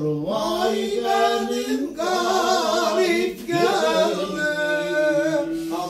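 A man singing an Elazığ folk song unaccompanied, drawing out long ornamented notes with a wavering pitch in three phrases that break briefly between them.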